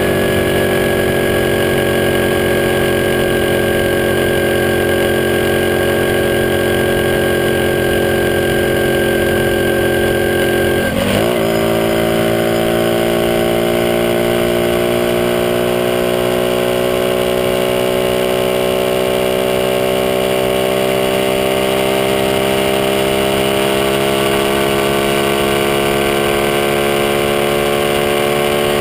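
Small motorcycle engine running under way at cruising speed. The pitch sags slowly, there is a brief break for a gear change about 11 seconds in, and then the pitch climbs steadily as the bike pulls in the new gear.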